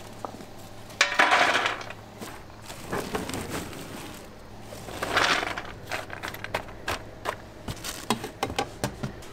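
Handfuls of shelled walnut pieces scooped out of a plastic-bag-lined box and dropped onto a baking tray: crunchy rustling of nuts and plastic bag in a few bursts, then a run of light clicks about two-thirds of the way in as the pieces are spread over the tray.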